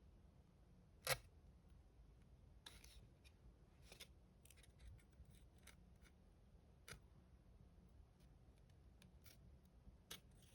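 Near silence: room tone with a few scattered faint clicks, one sharper click about a second in.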